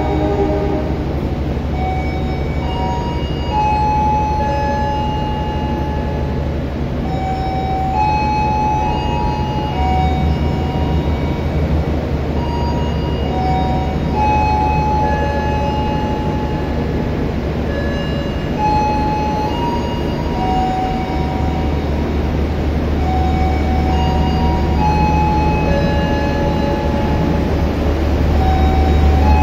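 Diesel locomotive hauling passenger coaches into a station, its engine a steady low rumble that swells near the end as it draws close. Short high tones of varying pitch come and go over it.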